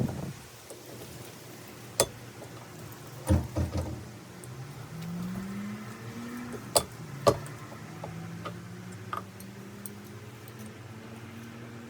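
Sharp metallic clicks and knocks of tools and ATV rear-end parts being handled during assembly, a handful of separate strikes with a short cluster a few seconds in. A faint hum rises in pitch in the middle and then holds steady.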